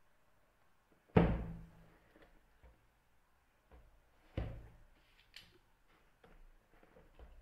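A long cardboard shipping box set down on a wooden tabletop: one loud hollow thump about a second in and a lighter one a few seconds later. Then a few faint clicks and scratches as a utility knife works along the taped seam.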